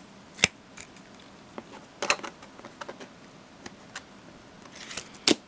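Clear plastic card sleeves and a bag of sleeves being handled as trading cards are slipped into them: scattered soft clicks and crinkles. The loudest come about half a second in and just before the end, with a small cluster around two seconds.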